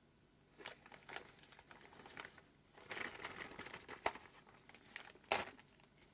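Faint crinkling and small clicks from a paper lens-cleaning wipe being handled and folded at close range, with a sharper tick a little after five seconds in.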